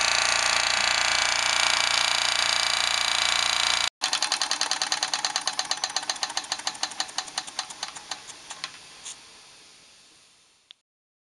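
Wilesco D4 toy steam engine running with a dense, steady hiss; after a short break its beat turns into a fast, even train of puffs that slows and fades until it stops, as the engine runs down.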